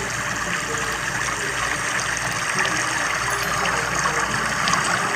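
Steady rush of fast-flowing floodwater.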